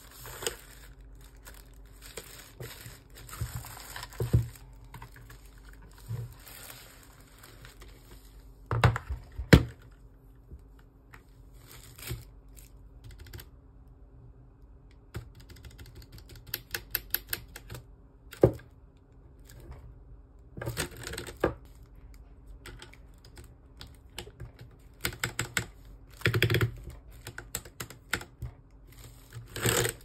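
Plastic bag rustling as it is handled, then a couple of sharp knocks. After that, keys on a Royal Kludge RK84 mechanical keyboard with brown switches are pressed in quick runs of keystrokes.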